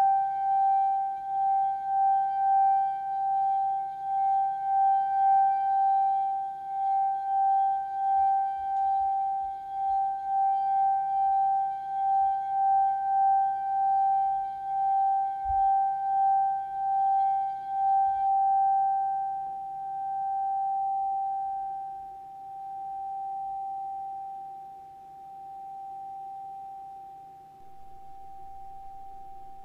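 A crystal singing bowl ringing one sustained, pure tone with a steady wavering pulse in its loudness. In the last third the pulse slows and the tone fades away.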